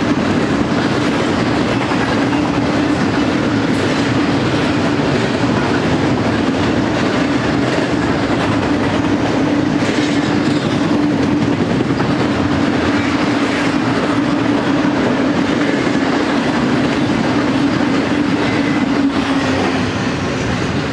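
Double-stack intermodal container well cars rolling past on the rails: a steady, loud rolling rumble of steel wheels on track with a few faint clicks.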